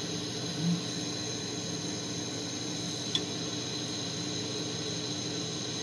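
Steady hiss of a propane-oxygen glassworking torch flame running at a constant level, with a single light tick about three seconds in.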